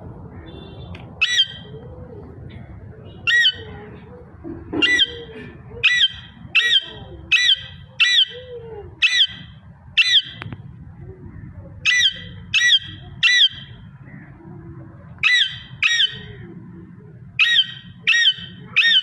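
Pet parrot squawking: about seventeen short, loud screeches, some single and some in quick runs of two or three, with pauses of a second or two between, over a steady low hum.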